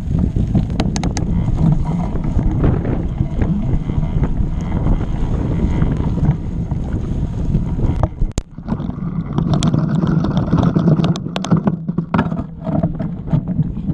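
Mountain bike riding over rough, rocky trail: a steady low rumble of wind buffeting the microphone, with frequent sharp clatters and knocks from the bike rattling over the ground. The noise dips briefly a little past halfway, then picks up again.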